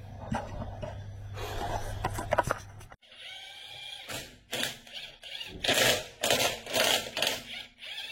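Irregular clicks, knocks and clatter of hand tools and metal parts being handled, heaviest about two-thirds of the way through. A low steady hum stops abruptly about three seconds in.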